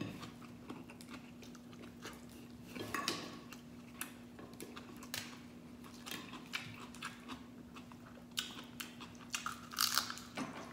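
Eating sounds of a man eating crab cooked in coconut milk, with rice, by hand: chewing and scattered short clicks and crackles of crab shell and fingers on the plate, with a louder cluster near the end. A steady low hum runs underneath.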